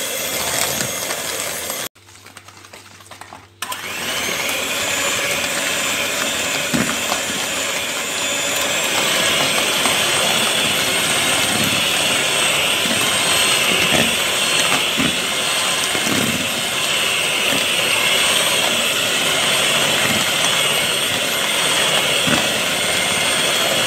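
Electric hand mixer running steadily, its twin wire beaters whipping eggs and powdered sugar into cake batter in a plastic bowl. The sound drops away for about a second and a half about two seconds in, then the mixer runs on.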